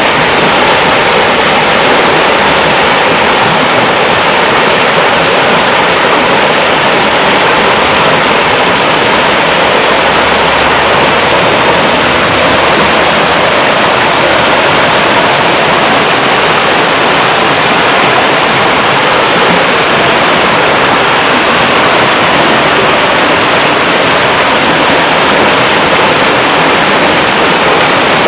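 Loud, steady rush of muddy floodwater pouring through a swollen stream and over a fallen tree's trunk and branches.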